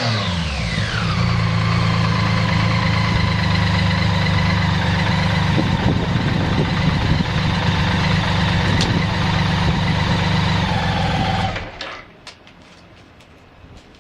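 BMW K75S motorcycle's three-cylinder engine settling from a rev back down to a steady idle, then shut off about twelve seconds in. The idle is even, with no odd noises.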